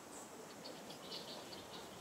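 A quick run of short, faint, high chirps from a small animal, about ten in just over a second, over a steady outdoor hiss.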